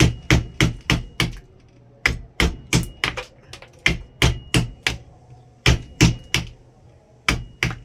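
A mallet striking a wood-carving chisel driven into a block of wood, in quick runs of sharp knocks about three a second with short pauses between runs, as chips are knocked off the rough mask blank.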